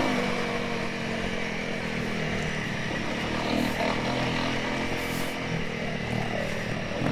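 Honda CRF300L trail bikes' single-cylinder engines running at low revs on a stony track, one close by and a second riding up toward it, at a steady level.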